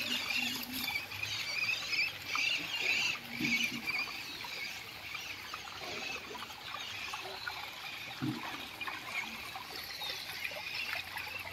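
Many small birds chirping and twittering at once, a dense, unbroken chatter.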